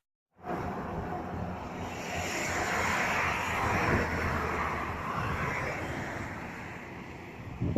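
A vehicle passing by, a broad rushing engine-and-tyre noise that swells to its loudest about three to four seconds in and then slowly fades.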